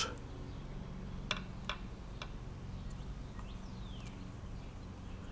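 A handful of faint, light clicks as a plastic carburetor float and needle valve are fitted by hand onto the metal body of a Subaru/Robin small-engine carburetor, over a steady low hum.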